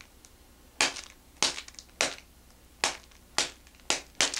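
Hand smacking a self-inflating foil balloon pack seven times, sharp smacks about half a second apart, to burst the inner pouch that sets off the inflation.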